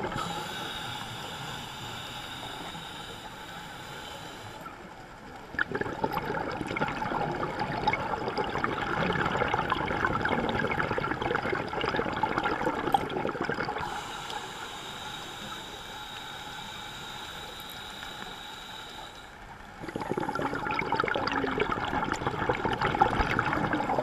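Scuba diver breathing through a regulator underwater: quieter inhales with a thin hiss alternate with long exhales of bubbling and gurgling. The bubbles start about five seconds in, give way to another inhale around fourteen seconds, and return near twenty seconds.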